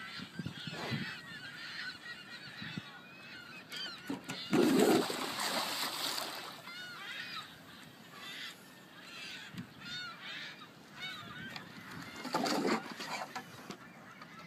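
Repeated short, high-pitched animal squeals and whines, each rising and falling in pitch. Two louder, fuller cries come about five seconds in and again near twelve and a half seconds.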